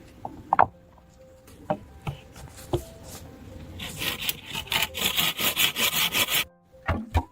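A few scattered knocks of wood on wood, then about two and a half seconds of quick, even sawing strokes through wood, about five a second, that stop abruptly.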